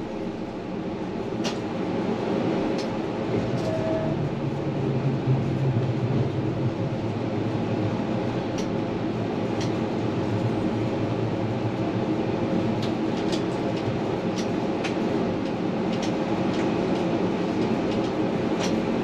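Tram running on its rails, heard from on board: a steady rolling noise with a low hum that swells for a few seconds early on, and scattered sharp clicks through the ride.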